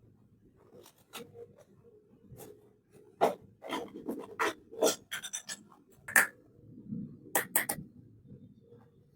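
Small toy kitchen pieces and packaging being handled: irregular sharp clicks and taps with light scraping and rubbing, a brief rattle about halfway, and three quick taps near the end.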